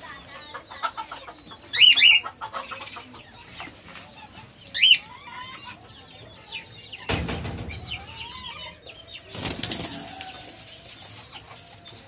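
Caged cockatiels: two loud, sharp calls about two and five seconds in, then two spells of wing-flapping against the cage later on, over faint chirping of small birds.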